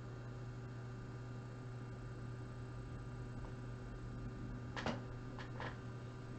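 Steady low electrical hum of room tone, with three brief faint scratchy handling noises about five seconds in.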